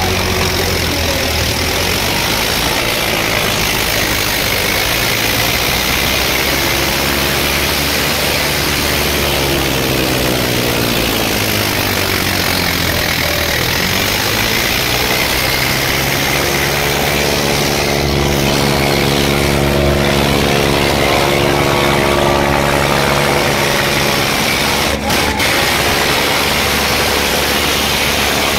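Tractor diesel engine running hard and steady. Its pitch sags and climbs back over a few seconds about ten seconds in, then holds steady again.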